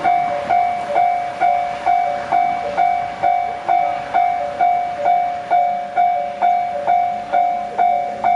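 Japanese railway level crossing warning bell ringing, a two-tone ding repeated steadily about twice a second. It is the alarm that a train is approaching and the barriers are coming down.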